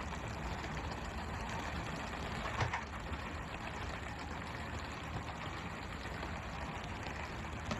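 Fishing boat's engine running steadily under the hiss of water spray, with one sharp thud about two and a half seconds in.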